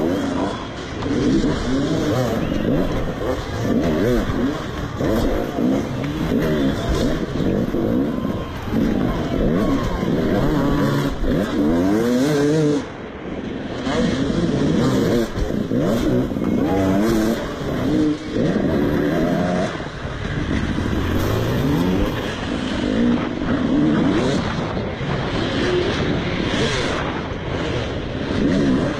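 Motocross bike engine revving up and down over and over as the throttle is opened and shut, its pitch rising and falling, heard close up from the rider's helmet. It drops off briefly about halfway through.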